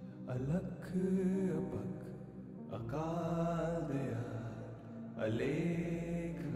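Slow, calm background music in a chanted, mantra-like style, with long pitched phrases that swell about every two and a half seconds.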